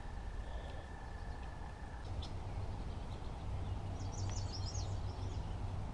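Outdoor ambience: a bird gives a quick cluster of high chirps about four seconds in, over a steady low rumble. A faint thin steady high tone stops about two seconds in.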